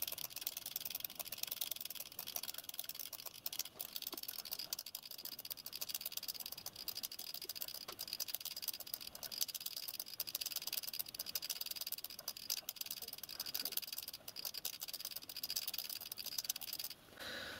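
Miniature live-steam locomotive's mechanical lubricator being pumped round by hand on the bench, its mechanism clicking rapidly and steadily as it pushes oil through the pipework; the clicking stops near the end.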